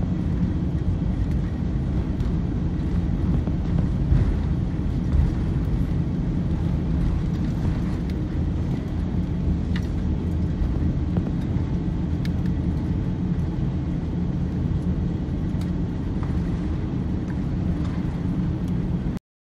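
Steady low rumble inside the cabin of a Singapore Airlines Airbus A350 on the ground after landing, from its Rolls-Royce Trent XWB engines and the aircraft rolling, with a few faint knocks.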